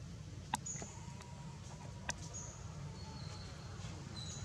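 Outdoor background: a steady low hum with a few short, very high chirps and two sharp clicks.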